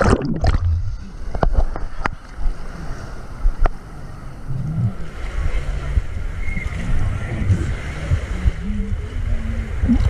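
Wave-pool water sloshing and gurgling right against a floating camera as it dips under and bobs back up, a heavy, muffled low rumble. Several sharp splashes come in the first few seconds.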